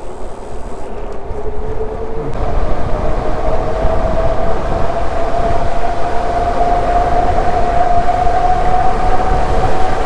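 Yadea Trooper 01 electric fat-tire bike ridden at speed: a thin whine that climbs slowly in pitch and then levels off, over a low rumble.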